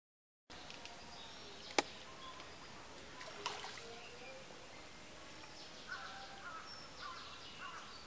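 Steady outdoor background with short bird chirps, after a half-second of silence at the start. A single sharp click sounds about two seconds in.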